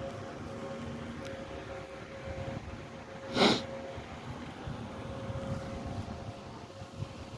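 Demolition machinery running steadily with a faint hum, and one loud, short burst of noise about three and a half seconds in.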